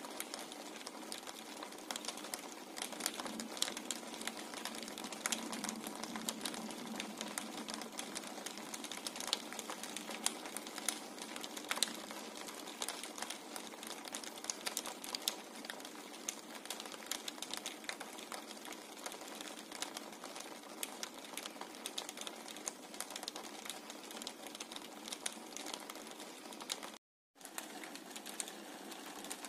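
Light rain on a window: a dense, irregular run of quick taps as drops strike the glass, over a steady hiss. The sound cuts out for a moment near the end.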